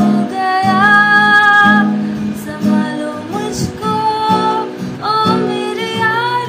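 A girl singing while strumming chords on an acoustic guitar, her voice holding long notes that bend slightly in pitch.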